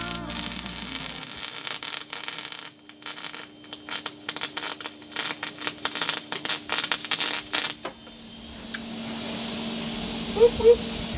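MIG welding arc crackling and spitting as a stainless bung is welded to mild steel plate with 309LSi wire. The arc stops about eight seconds in, leaving a faint rising hiss.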